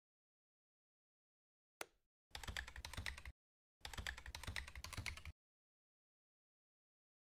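Computer keyboard typing in two quick bursts, about a second and then about a second and a half long, after a single sharp click near two seconds in.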